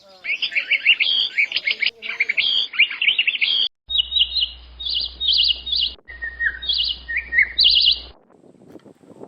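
Birds chirping and trilling in quick high calls, in several short stretches that break off abruptly one after another.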